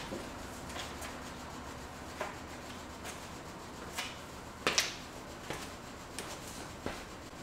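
Faint workshop handling noises: scattered light knocks and rubbing as someone moves about and handles parts, the loudest a sharp double knock a bit past the middle.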